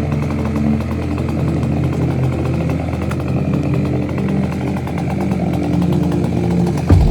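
A small engine running steadily, its pitch shifting slightly now and then.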